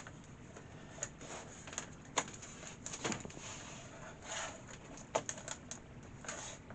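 Irregular plastic clicks, knocks and short rustles of a laptop and its removable battery being handled on a bench, the battery being taken out.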